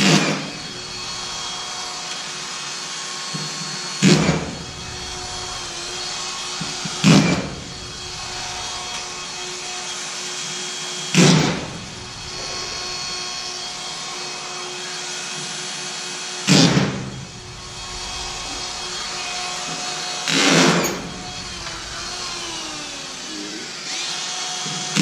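Drywall screw gun driving screws into drywall: about seven short bursts a few seconds apart, each about half a second long.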